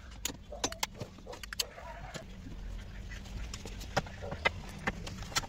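Scattered clicks, knocks and clinks of hand tools and plastic trim as a car's dashboard is taken apart, over a steady low background hum.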